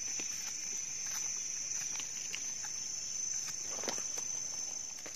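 Steady high-pitched drone of insects, with a few soft clicks and rustles of dry leaves and twigs as a freshly picked mushroom is handled. The sharpest click comes about four seconds in.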